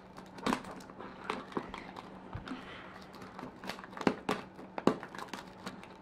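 Toy packaging being opened by hand: a plastic wrapper crinkling, with scattered sharp clicks and taps, a few louder ones in the second half.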